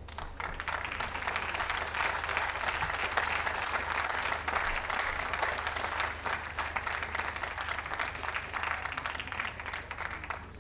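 Crowd applauding, starting suddenly and dying away near the end.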